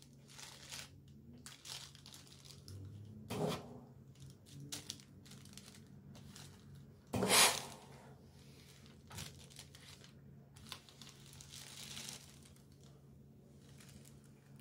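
Baking parchment crinkling and rustling as an iron is pushed back and forth over it, with two louder crinkles about three and a half and seven seconds in, the second the loudest.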